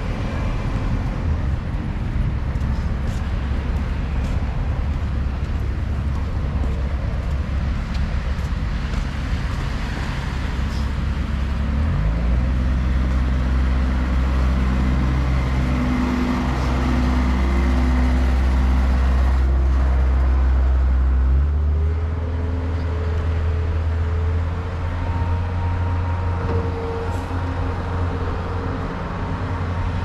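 Low traffic rumble, then about twelve seconds in a Bobcat S185 skid-steer loader's diesel engine revs up and runs steadily close by, loudest in the middle, shifting pitch again a little past twenty seconds.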